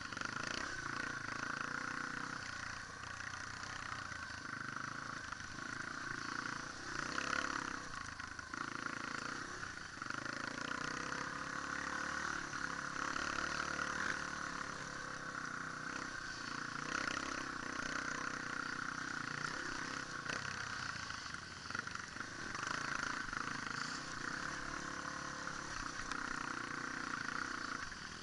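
Dirt bike engine heard from an onboard camera, running continuously with its pitch rising and falling every few seconds as the throttle is opened and closed.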